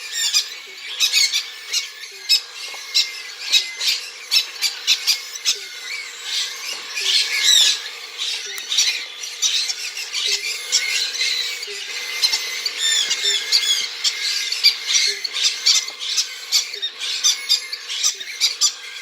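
Three-week-old cockatiel chicks giving food-begging calls while being hand-fed: a continuous run of short, high squawks.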